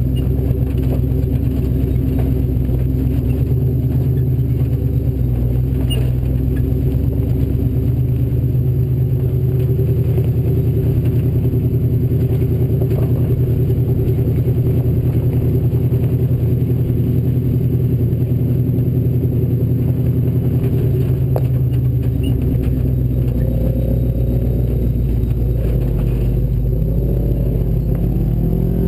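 Ford Bronco off-road race truck's engine running at a steady pitch, with scattered clatter and clicks. The engine note shifts and wavers in the last few seconds.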